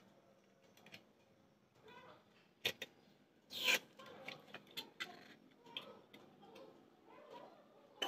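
Metal gas canister being pushed and twisted into a portable camping stove's connector: scattered small clicks and scrapes, with a sharp click about two and a half seconds in and a brief louder rasp about a second later.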